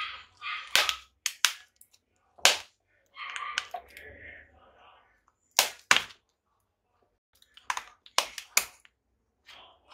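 Garden shears snipping through Premna roots under a nursery pot: about nine sharp cracks in irregular groups, with rustling between them.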